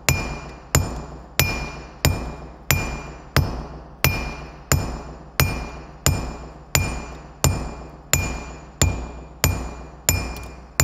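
Blacksmith's hammer striking red-hot steel on an anvil in a steady rhythm, about three blows every two seconds, each blow followed by a short high metallic ring.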